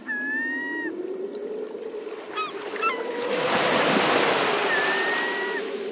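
A low, slowly rising moan runs under short, flat, high calls, each under a second, near the start, in the middle and near the end. A few seconds in comes a swelling rush of noise like surf.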